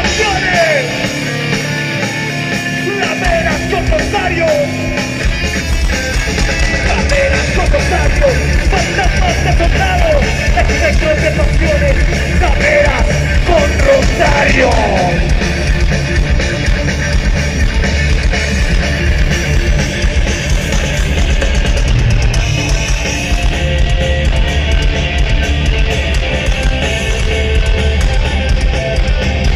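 Punk rock band playing live: distorted electric guitars, bass and drums. For the first few seconds the bass and drums drop out, leaving guitar with bent, sliding notes, then the full band comes back in.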